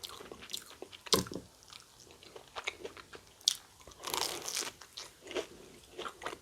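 Close-up crunching and chewing of a fried Korean corn dog with a sweet-potato crust: sharp, irregular crunches, with a longer run of crunching about four seconds in.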